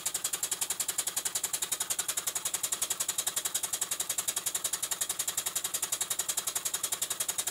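Stuart 5A model steam engine running on compressed air, beating rapidly and evenly at about ten beats a second with a hissing edge. Its crankshaft-driven mechanical lubricator turns with it, the ratchet now advancing every revolution because the pawl's over-tightened bolt has been slackened.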